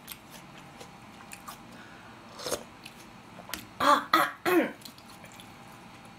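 A woman coughing and clearing her throat: one cough about two and a half seconds in, then three in quick succession around four seconds. Small clicks of eating come before them.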